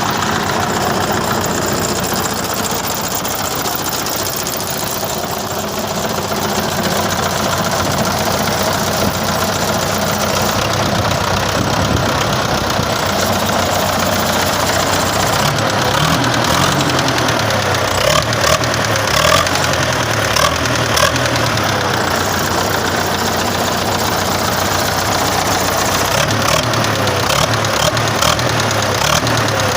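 Truck engine running with a steady knock. The owner has replaced the injection pump and injectors and checked the camshaft key and timing cover without finding the cause.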